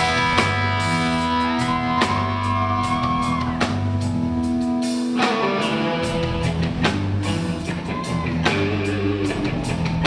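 Live blues band playing: electric guitar, bass guitar and drum kit, with long held notes that bend in pitch over a steady drum beat.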